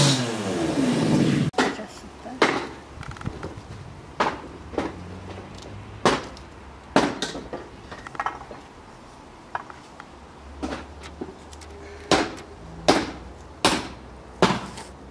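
Fresh green bean pods snapped by hand: about a dozen sharp, crisp snaps at irregular intervals. For the first second and a half an engine revving runs on, then stops abruptly.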